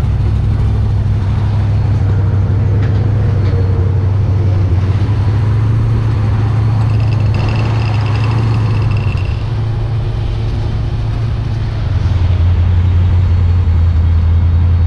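A vehicle on the move, with a steady low engine drone under road noise; about twelve seconds in the drone drops lower and gets a little louder.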